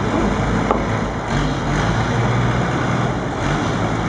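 Long-tail boat's engine running, its long-shaft propeller churning the water into spray.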